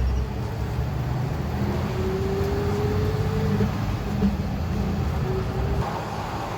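Pickup truck driving with a towed Jeep Cherokee behind it, a steady low engine and road rumble heard from inside the cab. A faint, slowly rising whine comes in for about a second and a half near the middle.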